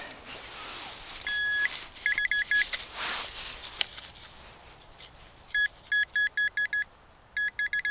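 Handheld metal-detecting pinpointer beeping: a short held tone, then runs of rapid same-pitch beeps about six a second, signalling metal close to its tip in the dig hole. A brief rustle of soil about three seconds in.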